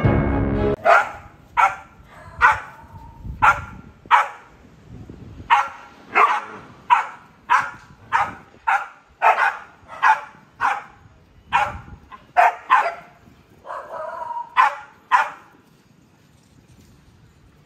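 Small dogs barking repeatedly in short, sharp barks at monkeys on a rock face, about one bark every half-second to second, falling quiet a couple of seconds before the end.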